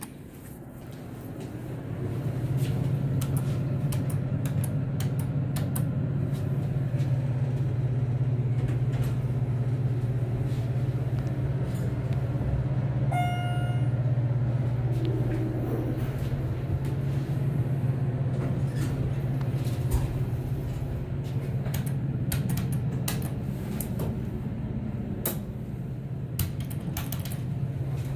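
Schindler 700A elevator in service, a steady low hum inside the cab, with a single short electronic chime about halfway through. Scattered clicks come near the end.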